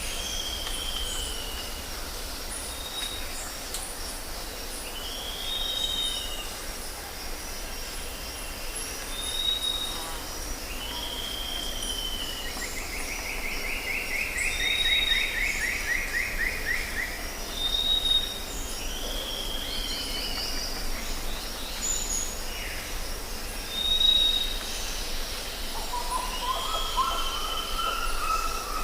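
Jungle ambience: several birds calling, with short arched whistled notes repeated every two to three seconds, a buzzy trill in the middle and a run of lower notes near the end, over a steady high drone of insects.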